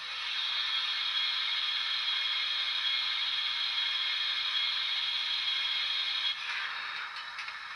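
Dapol 6300 Mogul model locomotive's DCC sound decoder playing recorded steam locomotive sounds through its small speakers: a steady steam hiss, which drops off after about six seconds and gives way to irregular mechanical clicks and clanks.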